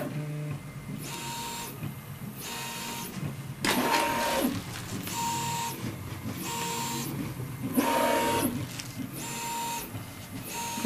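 Original Prusa i3 MK3 3D printer running its bed calibration. The stepper motors whir in short, even moves about once every 1.3 seconds as the print head steps from one probe point to the next, with two longer, louder moves about 4 and 8 seconds in.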